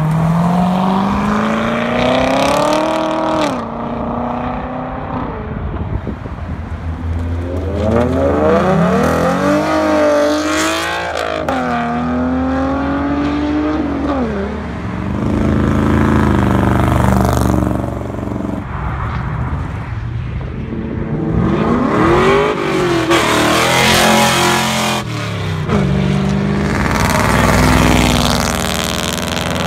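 Cars accelerating hard one after another, engines revving up with the pitch climbing and dropping back at each gear change. First a Chevrolet Corvette's V8 pulls up through the revs in the first few seconds, then more cars accelerate past, with a steadier engine drone in between.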